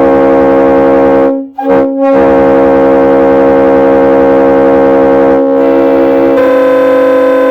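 Multi-chime locomotive air horn sounding a loud, held chord of several steady notes. It cuts out briefly about a second and a half in, then sounds again, and the chord changes twice in the last couple of seconds.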